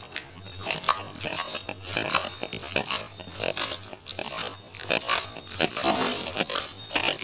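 Clay cooking pot full of fish pieces, onion and tomato being lifted and shaken by hand to toss the contents, giving a continuous run of irregular scrapes and knocks.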